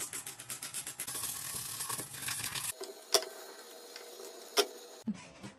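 Trigger spray bottle spraying cleaner in a rapid run of hissing bursts for a couple of seconds, then two sharp clicks.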